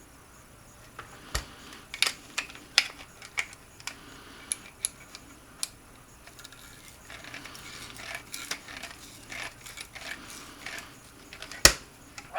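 Small parts and hand tools clicking and tapping against each other as an RC truck's steering assembly is worked on, with one sharper knock near the end.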